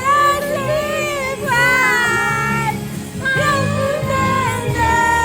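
A song playing: a high sung voice holding long, gliding notes over a backing track.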